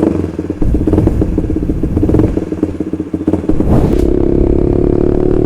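Honda CB150R's single-cylinder four-stroke engine breathing through an aftermarket WRX GP6 silencer on a stainless Blue Moon header, revved in short blips. From about four seconds in it is held at a steady higher rev.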